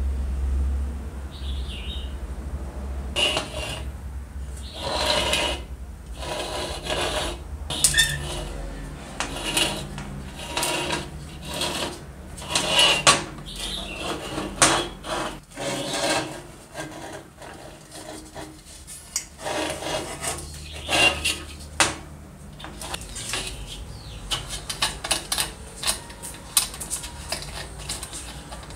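Irregular metallic clicks, knocks and scrapes as an old Primus kerosene stove's tank is handled and the fitting on its side is worked loose by hand and with a thin metal tool. A low hum sounds under the first several seconds.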